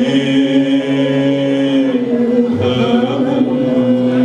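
A man and a woman singing long, held notes together to harmonium accompaniment, the melody moving slowly from note to note.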